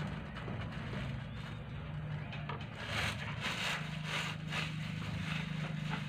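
Metal spoon stirring and scraping a bait mixture in a plastic bowl, in quick strokes from about three seconds in, over a steady low hum.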